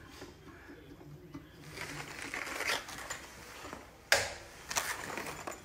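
Small clicks and scraping of a hand screwdriver turning a screw into a wooden cabinet frame, with one sharp knock about four seconds in and a few lighter clicks after it.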